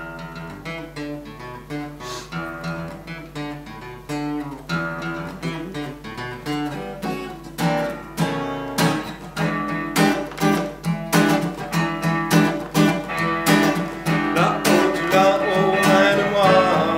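Acoustic guitar intro music: picked notes at first, growing louder into strummed chords about halfway through, with a second wavering melody line joining near the end.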